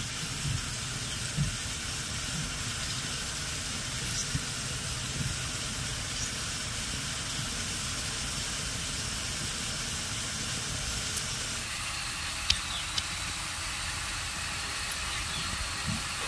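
Steady background hiss with a few faint light ticks from hands peeling boiled taro over a steel plate, a couple of them near the end.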